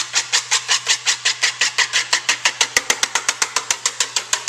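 Wire whisk beating egg white and water in a plastic mixing bowl to a froth: fast, even, noisy strokes against the bowl, about eight a second.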